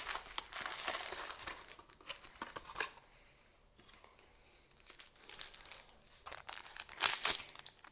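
Plastic booster-pack wrapper crinkling as card packs are handled and opened, with a quieter lull in the middle and a louder crinkle about seven seconds in.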